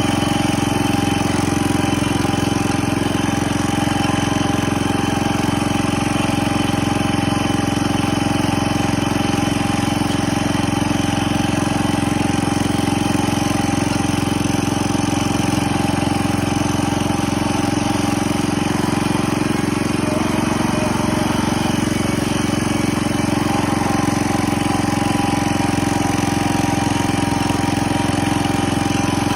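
Single-cylinder engine of a 1970 140 H3 garden tractor running steadily at an even speed.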